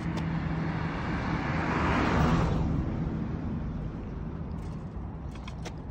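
A vehicle passes by, its noise swelling to a peak about two seconds in and then fading, over a steady low hum. A few clicks near the end.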